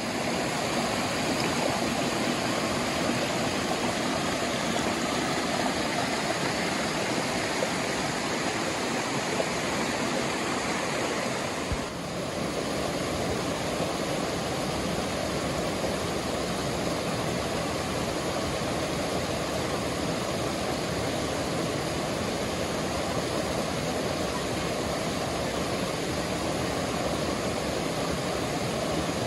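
Steady rushing of running water, a river flowing or falling over rocks.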